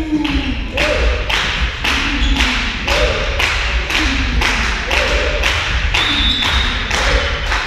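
Spectators clapping in a steady rhythm, about three claps a second, with a short two-note chant or shout repeated about once a second, in a sports hall during a volleyball match.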